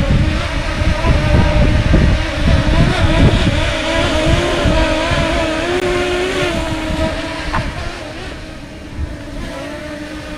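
Quadcopter drone's propellers whining steadily, the pitch wavering and briefly rising in the middle, fading somewhat near the end. Wind buffets the microphone underneath.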